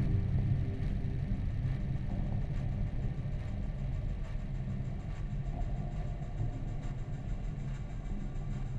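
A low, steady rumbling drone in a dark ambient background music track.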